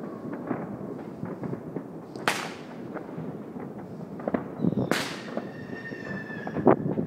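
Distant fireworks: a constant crackle of many far-off firecrackers and pops, with two louder bangs about two and five seconds in. After the second bang a high whistling tone, falling slightly, holds for about two seconds.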